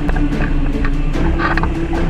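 Background music with held notes and a regular clicking beat.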